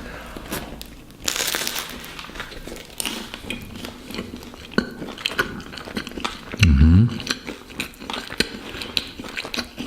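Paper wrapping crinkling and rustling as a baguette sandwich is handled and unwrapped, with many small crackles. A brief voice sound comes about seven seconds in.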